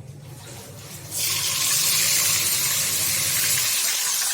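Tilapia going into hot frying oil about a second in, setting off loud, steady sizzling.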